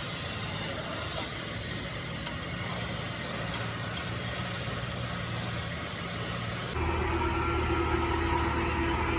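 Steady hum of a running motor or engine, which changes suddenly about seven seconds in to a louder hum with a clear steady tone.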